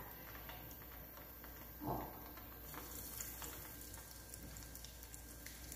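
Faint sizzling of hot oil in a small saucepan as breaded chicken bites fry, with scattered light crackles and one short, louder sound about two seconds in.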